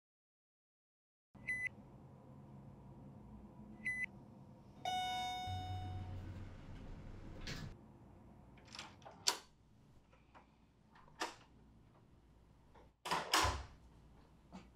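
Hotel elevator giving two short electronic beeps, then a chime as it arrives and a low rumble as the doors open. A series of sharp clicks and knocks of a door follows, the loudest near the end.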